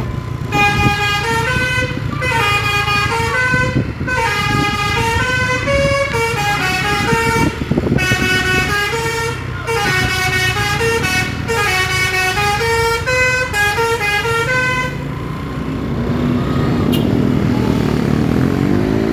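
Bus telolet horn (a Basuri musical horn) playing a stepping multi-note tune in short repeated phrases, stopping about fifteen seconds in. After it the bus engine runs on, its note rising near the end.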